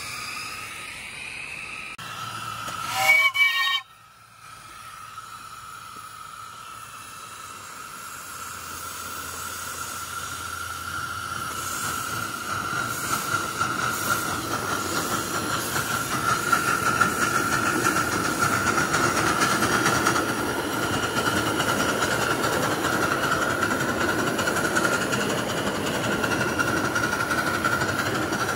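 Steam whistle of a 1-inch-scale live-steam Pacific locomotive blown once, about a second long, a few seconds in; then the locomotive's steam hiss and running noise on the track, growing louder as it picks up speed.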